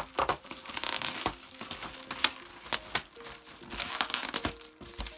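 Black plastic bin liner being pulled and torn off a cardboard parcel: irregular crinkling and rustling with sharp crackles, easing off near the end.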